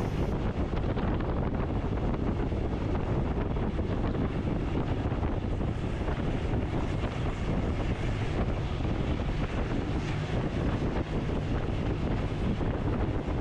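Steady wind buffeting the microphone over the low, even rumble of a moving vehicle.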